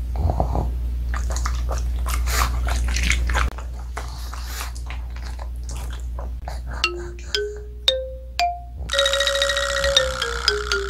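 Crisp crunching and chewing of a hard homemade dog cookie, dense at first and then sparser. From about seven seconds in, edited-in sound effects take over: short plucked notes stepping upward, then a held note stepping down under a buzzing layer.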